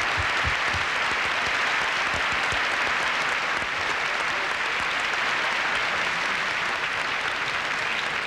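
Audience applauding steadily, with a few low thuds in the first couple of seconds.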